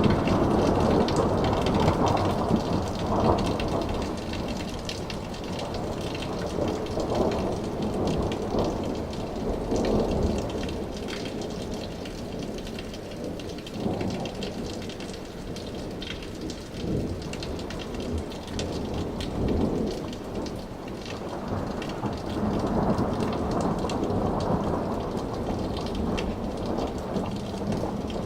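Thunder rumbling long and low overhead over steady rain falling on surfaces. The rumble is loudest in the first few seconds, dies down through the middle and swells again about two-thirds of the way in.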